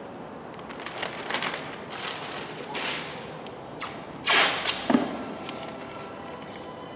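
Masking tape being pulled off its roll and pressed onto masking paper: a few short ripping and rustling noises, the longest and loudest about four seconds in.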